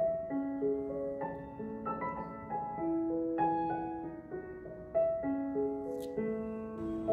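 Background music: a gentle solo piano melody, single notes struck one after another and left to ring.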